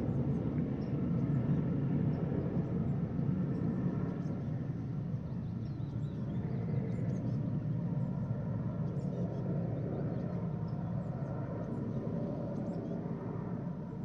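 Military helicopter flying past, its rotor and engine drone slowly fading as it moves away.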